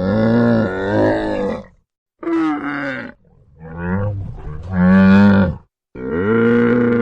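An animal's long, pitched calls, four in a row separated by short gaps.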